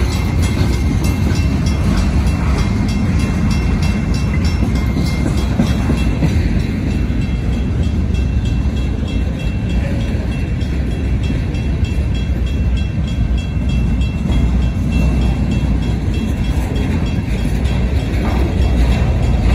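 Freight cars of a slow Portland and Western train rolling past on the rails, a steady low rumble. The crossing's mechanical bells ring over it, clearest in the first few seconds.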